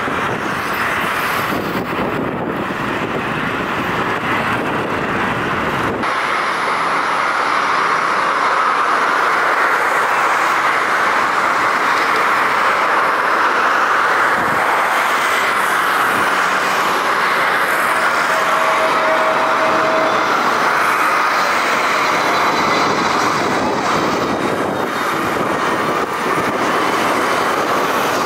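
Airliner jet engines at high power: first an Airbus A330-300 climbing away at takeoff thrust, then, after a change about six seconds in, an Airbus A320neo on approach to land. A steady rushing hiss that barely varies.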